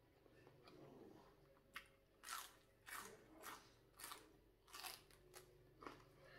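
Chewing raw celery stalk: a crisp crunch about every half second, starting about two seconds in.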